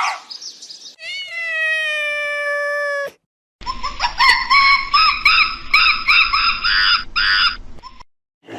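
Animal calls: a long, drawn-out pitched call falling slightly in pitch, then after a brief pause a fast run of repeated chirping calls, about four a second.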